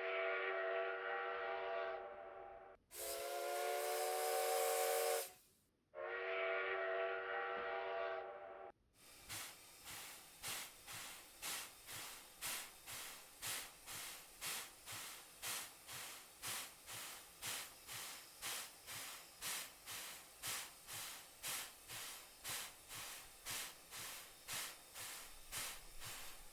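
Steam locomotive sounds: a chime whistle blown, a loud blast of steam hiss with the whistle, and the whistle again, then from about nine seconds in steady chuffing at about one and a half beats a second.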